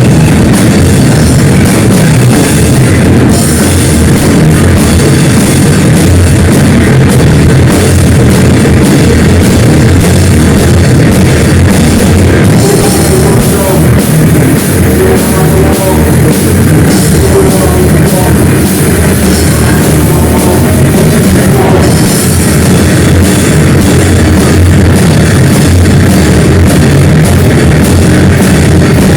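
Loud rock music with a drum kit, heavy and unbroken.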